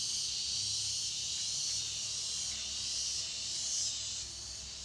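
Steady high-pitched chorus of insects, dropping slightly in level about four seconds in.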